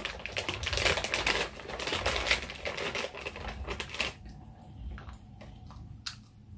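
Plastic snack packet crinkling and rustling as it is handled: a rapid crackle that thins to a few scattered clicks about four seconds in.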